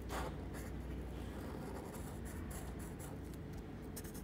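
Felt-tip marker scratching on paper in quick back-and-forth strokes, colouring in a small shape, with a short louder scrape right at the start.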